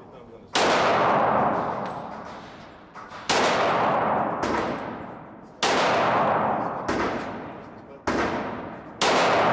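Glock pistol firing six single shots at an uneven pace, one to three seconds apart, each sharp report trailing off over a second or two.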